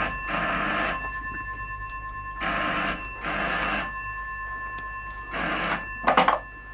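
Telephone ringing with the British double-ring cadence: two short rings, then a pause of about a second and a half, three times over. The last pair is cut short as the call is answered.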